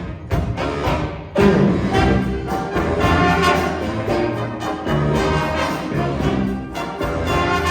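A saxophone section of alto, two tenors and baritone playing a jazz band piece with bass guitar and piano. The band dips briefly about a second in, then comes back in loud.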